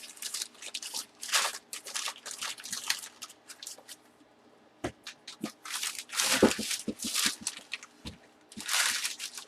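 Plastic wrapping being torn and crinkled off a bat's shipping tube, in irregular crackling bursts with a short pause around the middle.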